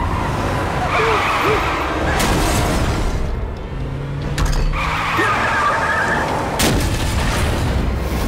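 Staged car-crash sound effects over dramatic background music: screeching and three loud crash impacts, about two, four and a half, and seven seconds in.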